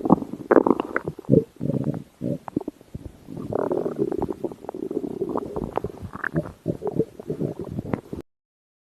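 Human stomach growling: a run of irregular gurgles, squelches and low rumbles, a short lull a few seconds in, then a longer stretch of gurgling that cuts off suddenly near the end.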